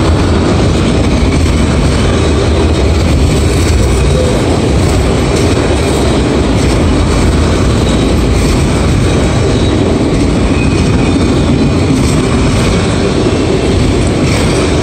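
Autorack freight cars rolling past close by: a loud, steady rumble and rattle of steel wheels on the rails.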